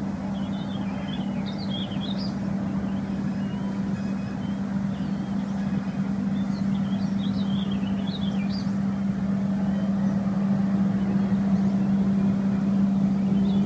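A motor running steadily, a constant low hum that gets a little louder toward the end. High, quickly wavering chirps come in three short spells over it.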